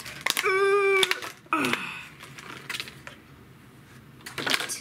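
Clear plastic blister package being pried and torn open by hand: clicks and crinkling plastic, a short high squeal near the start, and a burst of crackling near the end.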